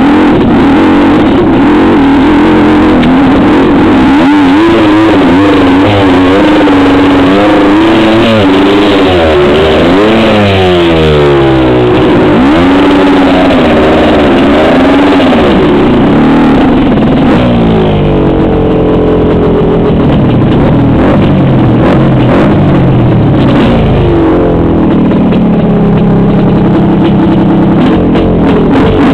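Trail motorcycle engine revving up and down under throttle, its pitch rising and falling every second or two, loud and close.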